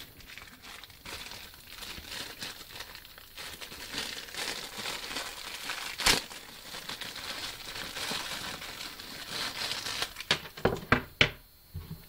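Clear plastic packaging bag crinkling as it is handled and pulled off a pet slicker brush. There is a sharp click about six seconds in and a quick run of sharp clicks and knocks near the end.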